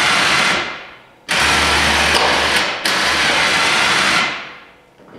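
Electric winch on a Polaris Ranger 6x6 running under load, winding in cable to lift a 72-inch KFI snowplow blade. It runs in two bursts: one that winds down about half a second in, and a longer one from just over a second in to about four seconds, with a brief hitch near the middle. Each burst stops sharply and then fades out as the motor spins down.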